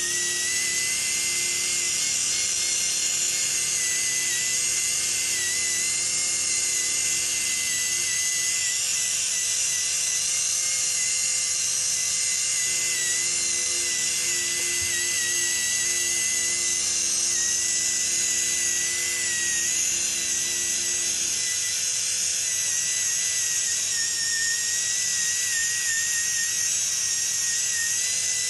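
High-speed right-angle rotary polishing handpiece running on a steel mold cavity, giving a steady high-pitched whine whose pitch wavers slightly.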